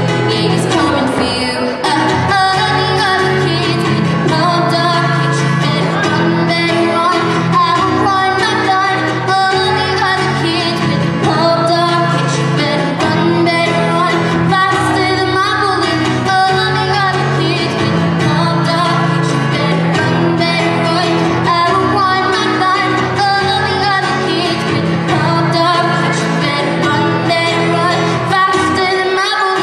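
A solo singer singing live with a strummed acoustic guitar.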